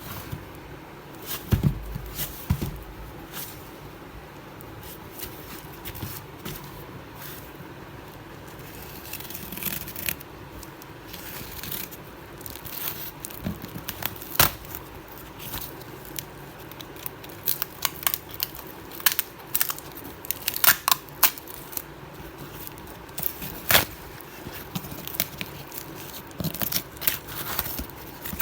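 Cardboard and plastic packaging of a mixer grinder being torn open and handled: tearing, crinkling and rustling, with many sharp clicks and knocks.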